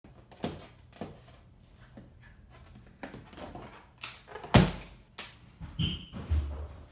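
A balloon squeezed and handled, with a few light taps and crinkles, then one sharp pop about four and a half seconds in, the loudest sound; handling noises follow.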